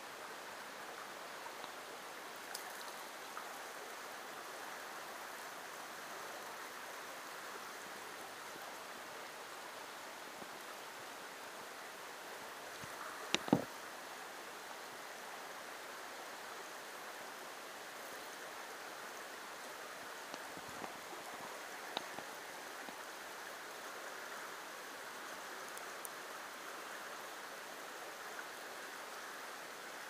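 Steady rush of a small, shallow creek running over rocks, with two quick loud knocks about halfway through and a few faint clicks.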